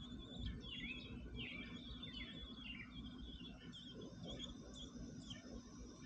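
Faint, high-pitched chirping of American robin nestlings begging at the nest while an adult feeds them, with a quick run of down-sweeping chirps in the first half that thins out later.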